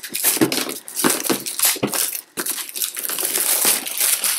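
Packing tape and cardboard being slit with a letter opener, with irregular crackling, crinkling and scraping strokes as the shipping box is cut open.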